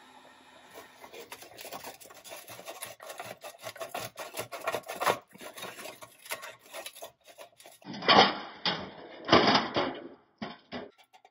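A heat gun hums steadily and stops about a second in. Then come quick scraping and clicking sounds from a rusty steel axle and rubber wheel being twisted and worked off an old Tonka toy truck's pressed-steel chassis. Two loud rasping scrapes come near the end.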